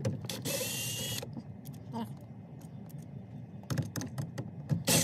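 Scattered clicks, knocks and rattles of hand tools and parts being handled while the steering wheel and airbag assembly are taken apart, with two brief hissing bursts, one near the start and one at the end.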